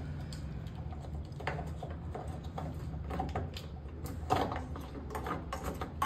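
Plastic drain-pump filter of a front-load washing machine being pushed back into its housing and turned, giving scattered light clicks and scrapes and one sharper knock a little after four seconds in, over a steady low hum.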